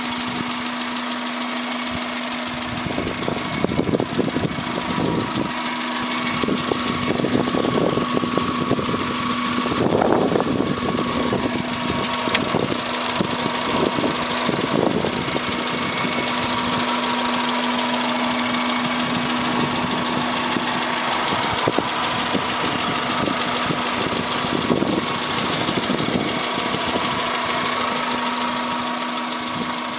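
A 1999 Subaru Legacy 2.0i's flat-four boxer engine idling steadily with the bonnet open. Irregular bursts of rustling noise come and go over it, mostly in the first half.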